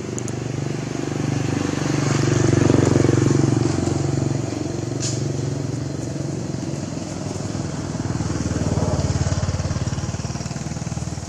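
Motorcycle engine running steadily close by, growing louder about two seconds in and again near the end, as bikes pass.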